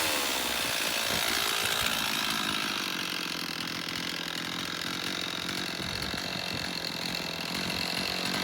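Stihl chainsaw engine dropping from a rev to a steady idle in the first moment, then idling evenly: the saw holds its idle after a carburetor repair.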